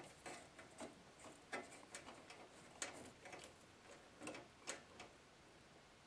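Faint, irregular light clicks and taps, about seven over a few seconds, from hands handling parts in and around an open metal PC case.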